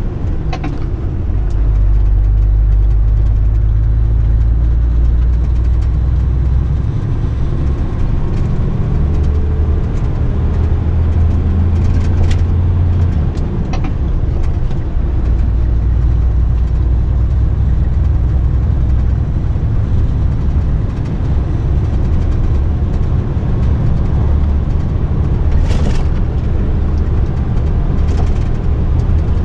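Mercedes-Benz truck running on the road, heard from inside the cab: a steady low engine drone with road noise. There are a few sharp knocks around the middle and once near the end.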